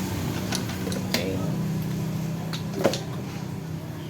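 A few short, light clicks and knocks of metal parts being handled while an air compressor's pistons are fitted, four of them spread over the few seconds, over a steady low hum.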